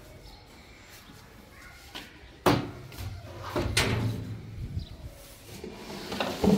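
Sharp knocks and scuffing from a cloth-wrapped floor squeegee and its handle working over a tiled floor. There is a loud knock about two and a half seconds in, another just before four seconds, and a quick cluster of knocks near the end.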